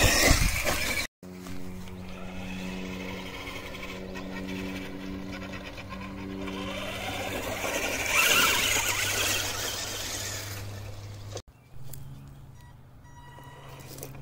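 Radio-controlled monster truck's electric motor and gears whining steadily as it drives, surging louder with a gliding pitch about eight seconds in. The sound drops out briefly twice.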